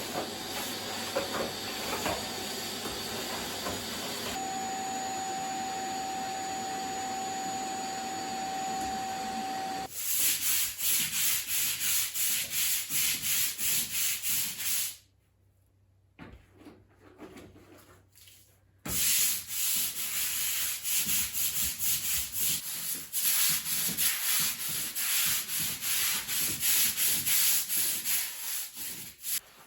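Fast back-and-forth scrubbing strokes, about four a second, in two stretches with a pause of a few seconds between them. They follow a steady hiss with a steady tone in it, which stops abruptly about ten seconds in.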